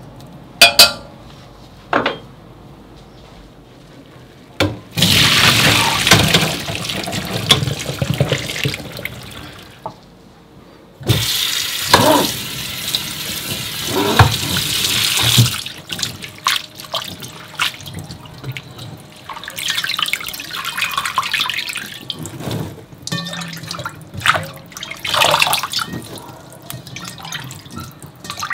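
Kitchen tap running cold water onto boiled bracken fern in a stainless steel mesh basket in the sink, in two long streams, then broken splashing and rattling as the ferns are stirred and rinsed. A couple of sharp metallic clinks come in the first two seconds.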